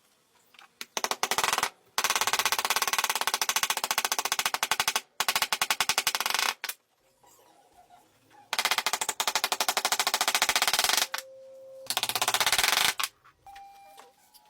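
Long runs of rapid, evenly spaced clicks, in several bursts of one to three seconds each, with short steady beeps between the last bursts.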